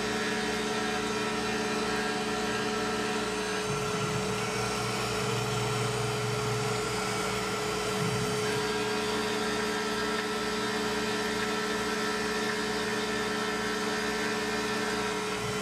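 Tormach PCNC 1100 CNC mill cutting aluminum with an end mill, milling a deep pocket under a coolant spray. The spindle runs steadily with the cutting noise, and a lower tone shifts for a few seconds around the middle before settling back.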